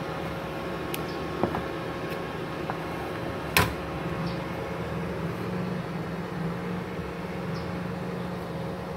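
Multipro MIG-MMA/TIG 160 A-SC inverter welding machine switched on and idling, its cooling fan running with a steady hum. A single sharp click about three and a half seconds in.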